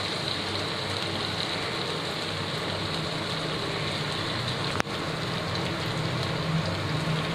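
Onions, tomatoes and spices frying in oil in a kadai: a steady sizzle over a faint low hum, with a single sharp click nearly five seconds in.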